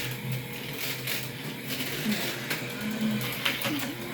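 HO-scale slot cars running around the track: the steady whir of their small electric motors with a rapid clicking rattle.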